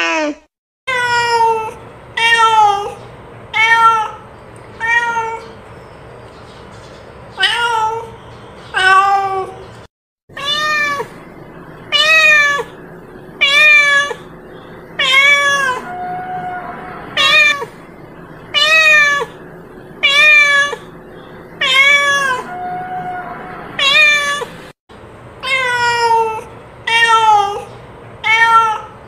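A cat meowing over and over, short meows roughly one a second, each rising and falling in pitch. The run breaks off twice into brief silence.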